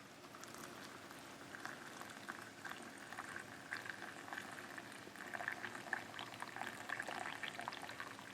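A pot of liquid boiling, with a rapid, irregular patter of bubbles popping that grows busier and louder about halfway through.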